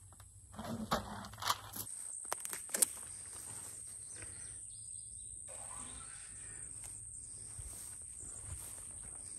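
A few sharp clicks and knocks in the first three seconds, then a steady high-pitched insect drone over faint outdoor hiss.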